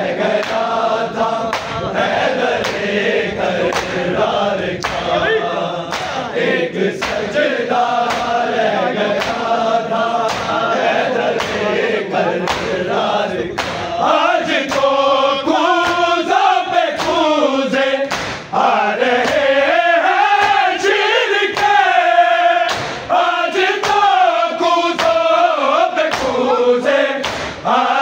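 A group of male voices chanting a noha, an Urdu lament, together in a sustained melodic line over a steady beat of sharp strokes.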